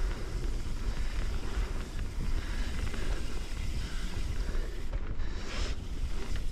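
Wind buffeting the camera microphone over the tyre noise of a mountain bike rolling fast down a dirt trail. A short, louder hiss comes about five and a half seconds in.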